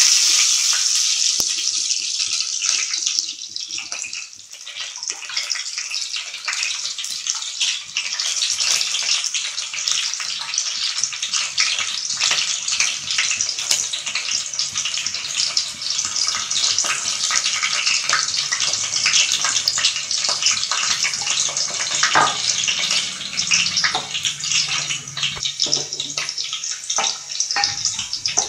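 Chopped onion frying in hot oil with mustard and fenugreek seeds in a pan, giving a steady sizzle full of fine crackles and pops.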